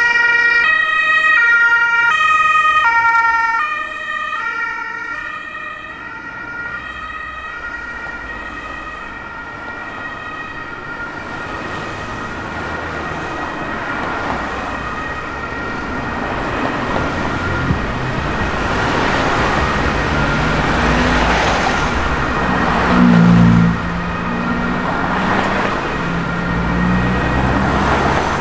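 An ambulance's German two-tone siren alternating between its two pitches, loud at first, then fading away over the first several seconds as the vehicle moves off. Road traffic noise then builds, with vehicles passing, and there is a short, loud, low-pitched blast about three-quarters of the way through.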